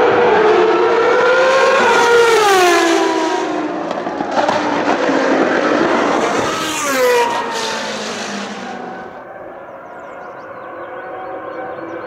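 Benetton B197 Formula One car's 3.0-litre Renault V10 at high revs driving past. Its high engine note climbs and then drops away as it passes, rises and falls sharply again about seven seconds in, then gives way to a quieter, steadier engine note.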